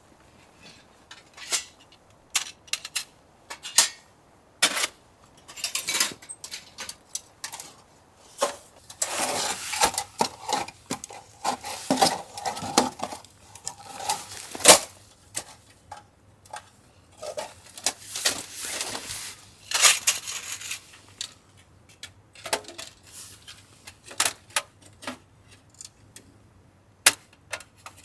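Metal parts of a portable camping wood stove clinking and knocking as they are handled and fitted together: a string of light clanks with short scraping and rubbing sounds between them.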